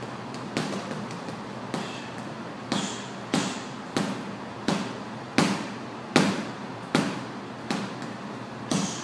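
Boxing gloves striking a chain-hung Life Fitness heavy bag: about eleven punches at a slightly uneven pace, roughly one every three-quarters of a second, with the hardest landing a little past the middle.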